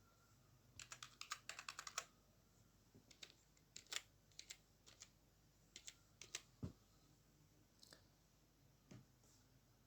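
Typing on a computer keyboard while entering a password: a quick run of keystrokes about a second in, then scattered single keystrokes and short runs.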